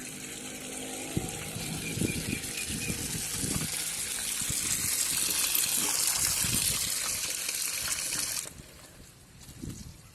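Water gushing from a hose pipe, as in wetting a new masonry wall to cure it. It grows louder and then stops abruptly about eight and a half seconds in.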